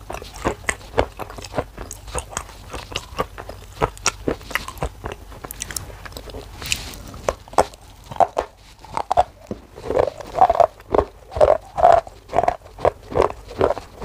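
Mouth biting into and chewing black shale clay, with many small crisp crunches. From about eight seconds in the chewing turns louder and slower, about two strokes a second.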